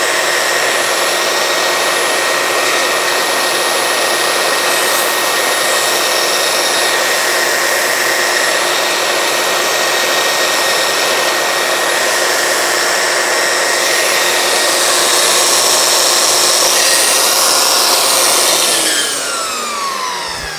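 Makita 9403 4x24 belt sander running steadily with a high whine while a wooden stick is held against its belt. Near the end it is switched off and the whine falls as the motor spins down.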